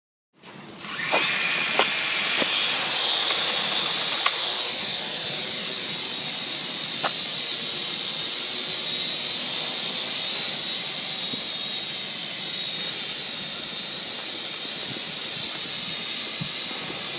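Blade mQx micro quadcopter's brushed motors and propellers whining steadily in a hover: a high, even whine with hiss that cuts in about half a second in, with a few faint ticks in the first seconds.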